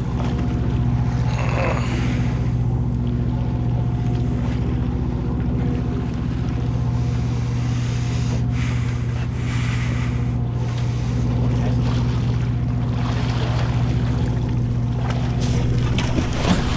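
Sportfishing boat's engine running with a steady low hum, with water washing along the hull and wind on the microphone swelling now and then.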